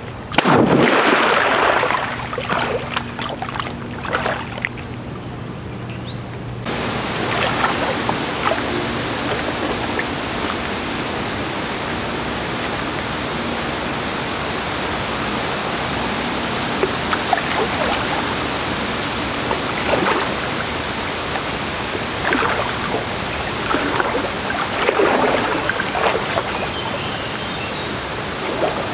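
A loud splash as a person enters a shallow river about half a second in, followed by a few seconds of sloshing. Then a steady rush of flowing water, with scattered splashes from wading.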